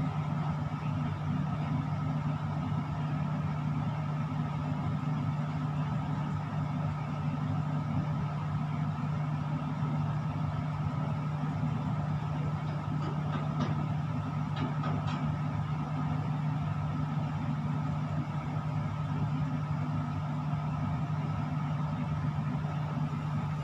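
Steady machine hum of equipment in a tower crane's operator cab: an even low drone with a fainter higher tone above it. A few faint ticks come a little past the middle.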